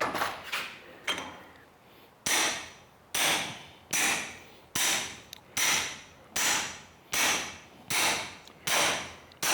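Hammer driving a wheel bearing race into a brake rotor hub until it seats: a couple of light taps, then from about two seconds in a steady run of sharp, ringing metal blows, a little faster than one a second.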